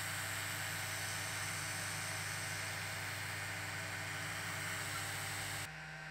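Creality air assist pump running, a steady hiss of air with a low buzz beneath. It cuts off abruptly near the end, leaving a fainter steady hum.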